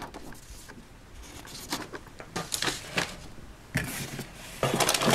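Clear plastic bag of plastic toy tools crinkling as it is handled, in short irregular rustles that come thicker near the end.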